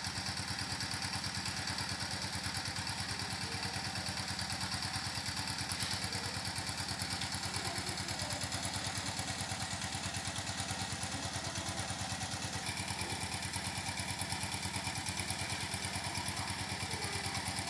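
A small engine idling steadily at an even speed, a fast, regular chugging with no change in pace.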